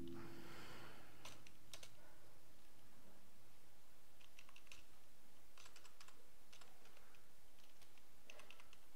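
Computer keyboard being typed on: a few scattered keystroke clicks in small clusters, with pauses between them.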